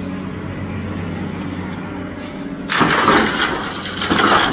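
Heavy diesel machinery running steadily with a low drone, joined by two loud rushing noises, about three seconds in and again near the end.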